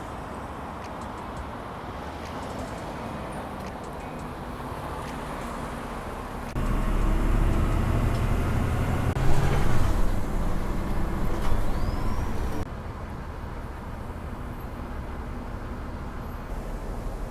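Road traffic running steadily, with a bus's engine running loud and close for about six seconds in the middle, starting and stopping abruptly.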